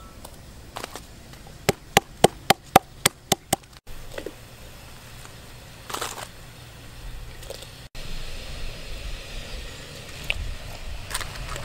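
A knife chopping on a wooden chopping block: a quick run of about eight sharp strikes, about four a second, in the first few seconds. After that come only soft rustles and a few light knocks as pieces of meat are dropped into a clay pot.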